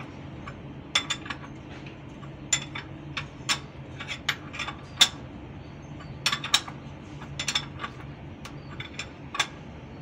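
Irregular sharp metal clicks and clinks of a hand wrench working the adjusting bolts of the release levers on a Hino 500 truck's clutch pressure plate, over a steady low hum.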